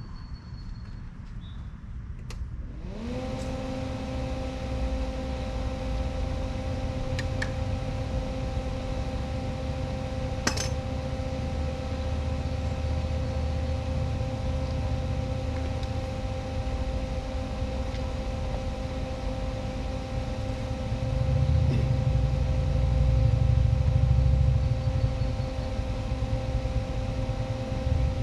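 A small electric motor spins up about three seconds in and then runs at a steady pitch, with a low rumble underneath that swells near the end.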